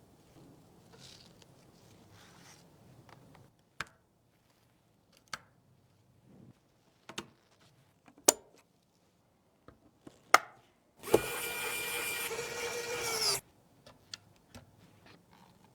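Sharp clicks and knocks of computer parts being handled and snapped into place, five or so spread apart, then a loud whirring noise with a steady tone for about two seconds that dips slightly and cuts off, like a small electric screwdriver.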